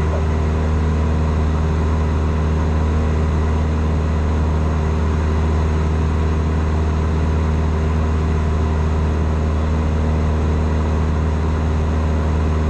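Cessna 172 Skyhawk's piston engine and propeller droning steadily in flight, heard inside the cabin.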